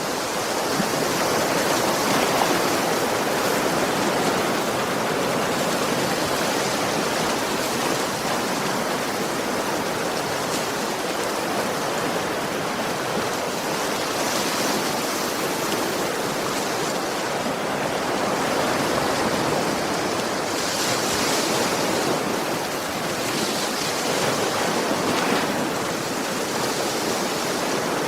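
Sea waves washing gently onto a shore: a continuous rushing of surf that swells and eases slowly, with brighter hissing washes around the middle and near the end.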